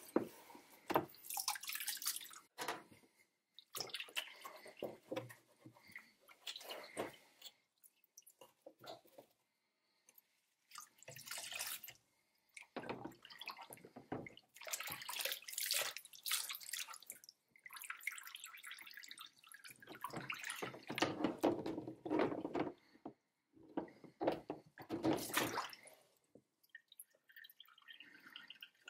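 Water splashing and dripping as a cloth scrubs a plastic case part sitting in a plastic tub of soapy water, in irregular bursts broken by short silences.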